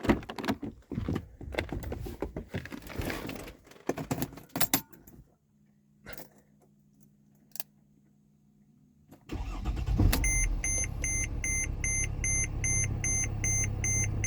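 Footsteps and handling clicks, then a Mercedes ML320 CDI's 3.0 V6 diesel cranks and starts about nine seconds in and settles to a steady idle. From just after the start, a dashboard warning chime beeps about two to three times a second.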